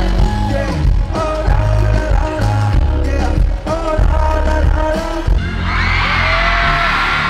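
Live concert music: a male singer's vocal over a heavy bass beat. About five seconds in, the beat changes and the crowd breaks into loud cheering and screaming.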